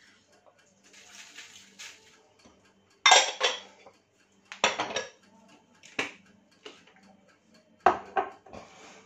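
Salt shaken from a small plastic shaker onto potatoes in an air fryer tray, a faint hiss, followed by five or six sharp clattering knocks as containers and kitchenware are handled and set down on the countertop.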